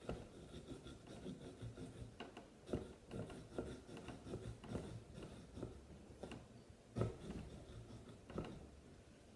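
Small pumpkin-carving saw sawing back and forth through the pumpkin's rind and flesh along the traced outline: a faint rasping in quick, irregular strokes, with a few louder knocks.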